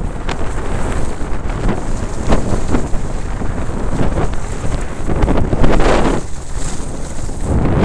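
Wind buffeting the microphone of a camera carried by a skier running downhill, with repeated swishes of ski edges scraping the snow on the turns, the loudest about five to six seconds in.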